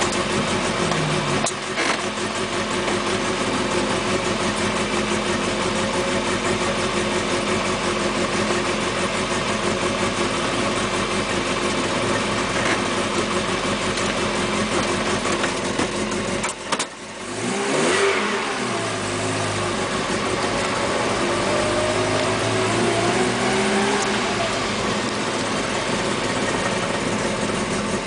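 Lotus Elise Sport 160's Rover K-series four-cylinder engine pulling hard under load, heard inside the cabin, with a steady hiss of road spray. Shifts are made early: the engine note drops sharply at a gear change about seventeen seconds in, then the pitch climbs again as the car accelerates.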